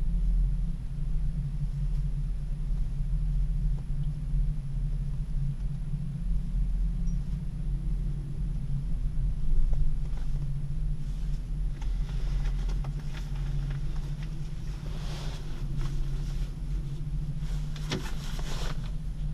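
Moving cable car cabin: a steady low rumble, with brief rustling hisses about fifteen seconds in and again near the end.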